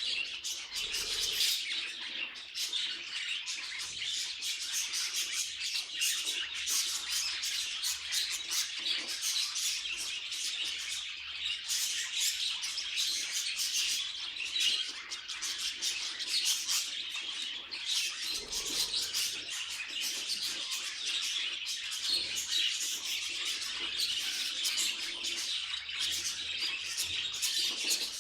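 Budgerigars chattering and warbling: a steady stream of quick chirps and twittering notes without pause.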